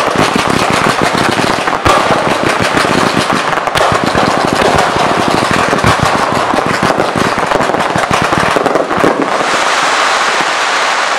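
Professional firework display at full barrage: shell bursts and crackling go off in rapid, unbroken succession. About nine seconds in, the deep bangs thin out and dense crackle goes on.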